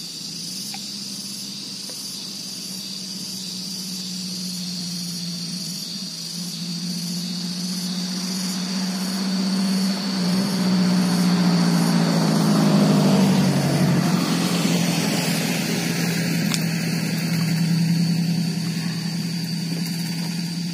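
A steady engine hum that grows louder about ten seconds in and eases off again after about fourteen seconds, with a steady high-pitched buzz over it.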